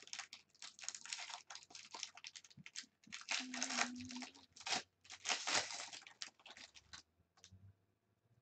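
Foil wrapper of a 2015 Bowman Draft jumbo baseball card pack being torn open and crinkled by hand: a run of irregular crackling rips that stops about a second and a half before the end.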